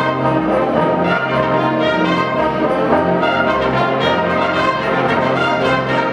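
High school concert band playing, with brass to the fore: sustained full chords over a bass line that moves every half second or so.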